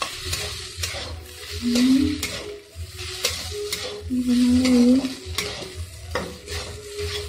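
Chopped okra sizzling as it fries in oil in a kadhai over a high gas flame, while a spatula stirs and scrapes it against the pan in repeated strokes. Two short low humming tones come about two seconds in and again near five seconds.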